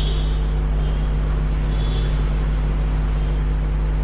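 Steady low electrical hum with a buzz of overtones, unchanging in level: mains hum picked up through the microphone and sound system.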